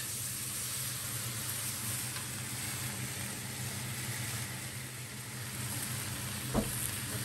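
Water spinach and okra sizzling as they are stir-fried in a wok over a gas flame, with a steady hiss, and one sharp knock of the metal spatula against the wok near the end.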